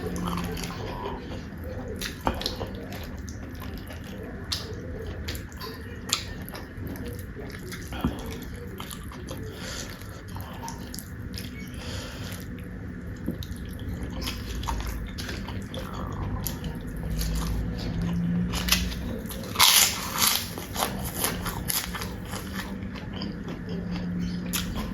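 Close-miked eating: wet chewing and mouth clicks, with a louder cluster of sharp clicks about twenty seconds in.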